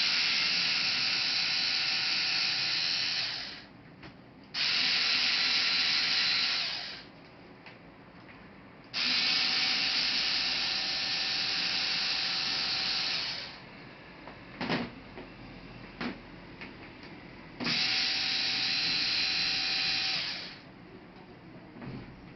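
Small electric screwdriver running in four bursts of two to four seconds each, driving laptop case screws, with a couple of sharp clicks in the pause between the third and fourth bursts.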